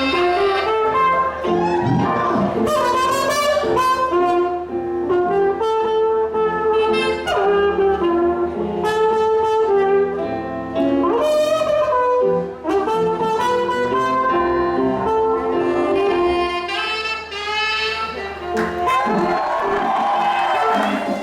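Slow instrumental music: a hymn arrangement with a melody on a wind instrument over held accompanying chords.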